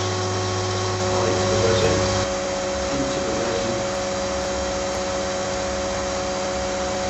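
Vacuum pump running steadily, holding the infusion bag under vacuum: a steady rushing hum with a few fixed tones, shifting slightly in its low hum a little over two seconds in.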